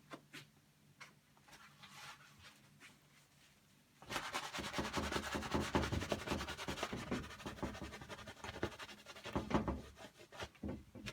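Rapid scrubbing strokes of a painting tool working acrylic paint, starting about four seconds in and running for several seconds, after a few faint light taps.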